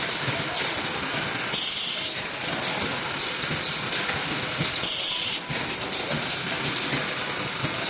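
Automatic steel wire cutting machines running, with repeated sharp clicks and two short hisses of air from their pneumatic cylinders, about a second and a half in and again around five seconds in.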